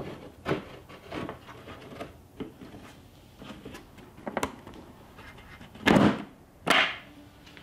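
3D-printed plastic canopy of an RC model aircraft being handled on the fuselage, giving light clicks and knocks, then two sharp snaps about six and seven seconds in as its spring-loaded latch is pressed and the canopy clicks into place.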